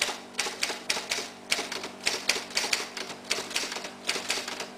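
Typewriter keys clacking in an irregular run of strikes, about three or four a second: a typing sound effect laid over text being typed onto the screen.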